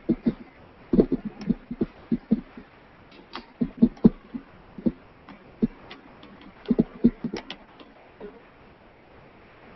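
Irregular short knocks, taps and clicks of small objects being handled and set down on a cluttered work table around a glass jar, coming in bunches and thinning out near the end.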